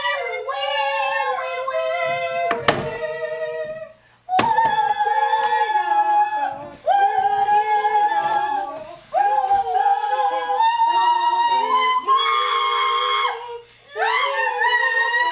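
A high voice singing long held notes in phrases of two to four seconds, with short breaks between phrases.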